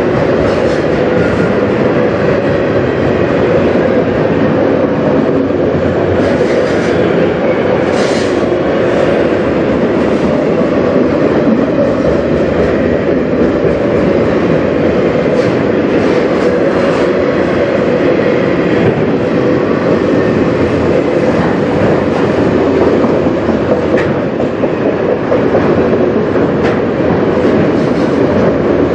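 Freight train of autorack cars rolling past at close range: a steady, loud rumble of steel wheels on the rails, broken now and then by short sharp clanks.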